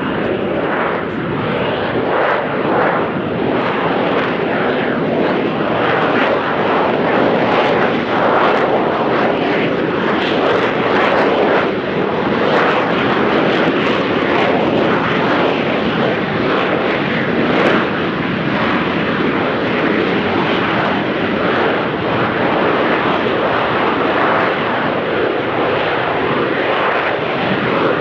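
AV-8B Harrier's Rolls-Royce Pegasus vectored-thrust turbofan giving a loud, steady jet roar as the aircraft flies its slow approach into the hover.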